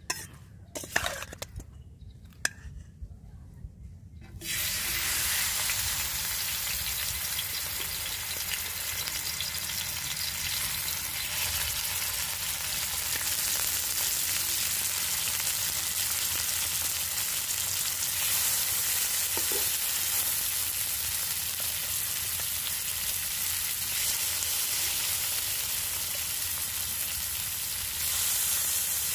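A few light clicks and knocks, then about four seconds in a steady sizzle starts suddenly: turmeric-coated climbing perch frying in hot oil in a wide iron pan.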